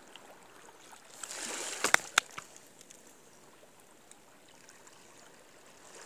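Close handling noise: a brief rustle about a second in that ends in two sharp clicks, then only a faint steady hiss.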